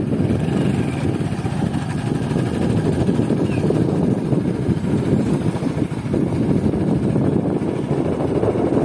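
Wind buffeting the microphone over the steady rumble of a moving vehicle.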